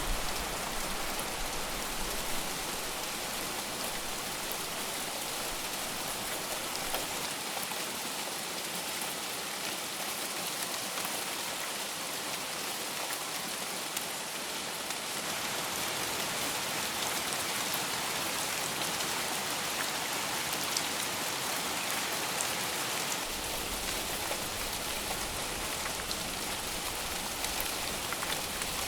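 Steady heavy rain falling, a dense even hiss with scattered sharper drop ticks.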